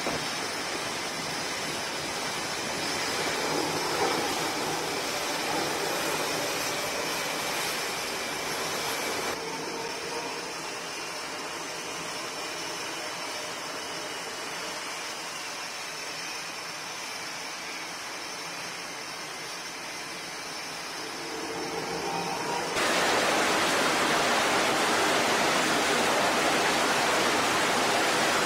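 F/A-18 Super Hornet jet engines running on a carrier flight deck: a steady rushing whine-and-hiss that changes abruptly twice, jumping much louder about 23 seconds in while a jet sits on the catapult at launch power.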